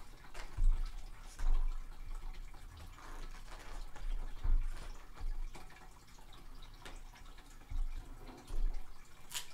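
Pages of a hardcover photo book being turned and handled: irregular soft paper brushes and flaps with faint low thumps, and a sharp tap near the end.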